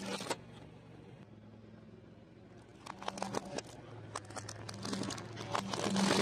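A car tyre rolling over and crushing a bundle of wooden coloured pencils: a brief crunch at the start, a run of snapping cracks about three seconds in, then a denser, louder run of cracks near the end, over a low steady hum.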